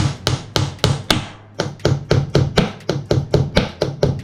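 Claw hammer tapping a nail pushed into a drilled hole in a refrigerator cabinet's top, widening the hole. Quick, even strikes, about three a second at first, then after a short pause about a second and a half in, faster at about five a second.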